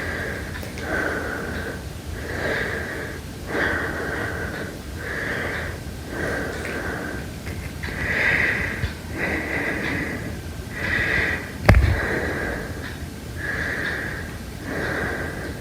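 Heavy breathing, slow and steady, one breath in or out about every second and a bit, each with a slight whistle to it. A single sharp thump about twelve seconds in.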